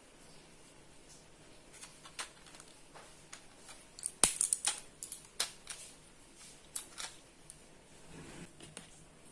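A foil-backed plastic blister pack crinkling and crackling as it is handled and bent. It gives scattered sharp clicks, with the loudest cluster of snaps about four seconds in.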